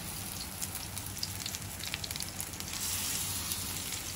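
Spice-marinated fish pieces shallow-frying in hot oil in a pan: a steady sizzle with a constant crackle of small pops.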